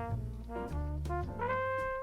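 Instrumental background music: a brass-like melody of held notes over a bass line, with light percussion.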